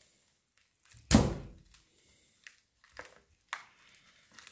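A single heavy thunk about a second in, dying away quickly, followed by a few faint small clicks.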